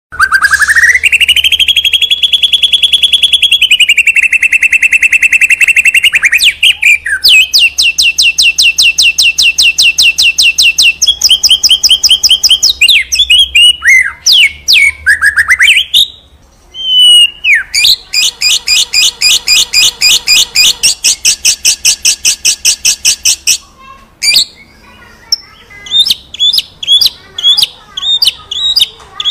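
Shama (murai batu) singing vigorously: long runs of fast, evenly repeated high notes, some held on one pitch and some sweeping up, with a brief break about halfway through and sharper separate notes near the end.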